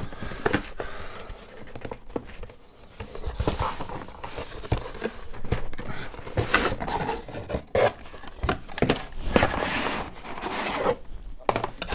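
Cardboard packaging inserts being handled, folded and pushed back together by hand: irregular scraping, rustling and light knocks of card against card and against the desk.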